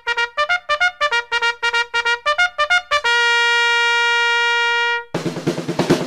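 Upbeat intro music: a quick run of short staccato notes, then one long held note that cuts off suddenly, followed near the end by fuller music with a drum beat.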